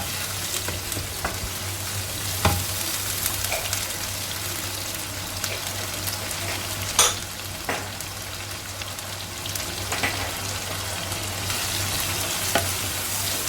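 Onions, green chilli and curry leaves frying in hot oil in a pan with a steady sizzle. A few sharp knocks come from a utensil striking the pan as the mixture is stirred.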